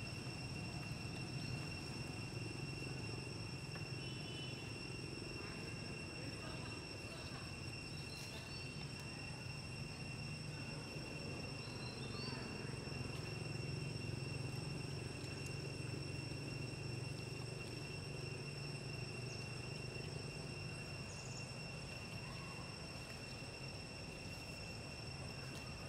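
Steady high-pitched insect drone, one unbroken tone, over a low even background hum, with a few faint short chirps scattered through.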